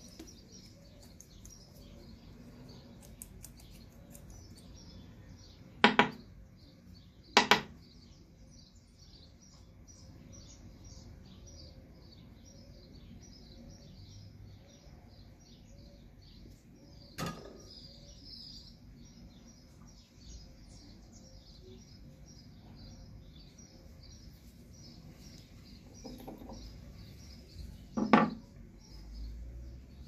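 Four sharp clicks, with a softer knock near the end, from handling 9mm brass cases and a small steel hand tool against a wooden bench. Small birds chirp steadily in the background.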